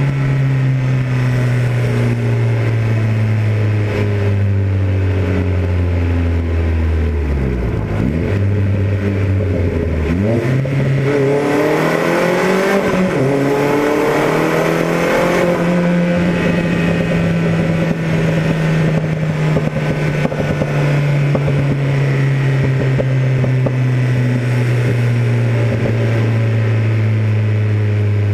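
Modified Opel Speedster Turbo's turbocharged four-cylinder engine heard onboard in a tunnel. The engine pitch falls steadily, dips sharply twice around eight and ten seconds in, then rises for about five seconds under acceleration with a hiss over it, before holding steady and slowly sinking while cruising.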